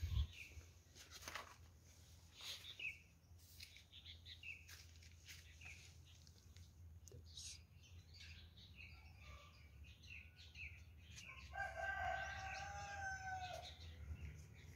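A rooster crows once near the end, one long call held for about two seconds. Short bird chirps come and go before it, and there is a single knock at the very start.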